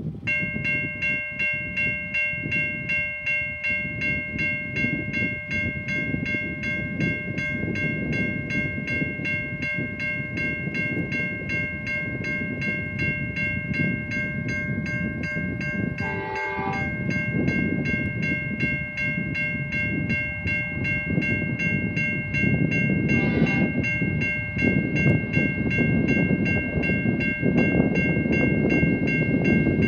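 Level crossing warning bell starts ringing a moment in and rings on rapidly and steadily, while the rumble of an approaching diesel freight train grows louder. The NR class locomotive sounds its horn twice: a blast of about a second roughly halfway through, then a shorter one some seven seconds later.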